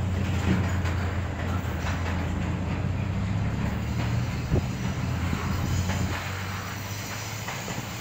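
Double-stack intermodal freight train rolling past close by: a steady low rumble of wheels on rail, with a single sharp knock about four and a half seconds in.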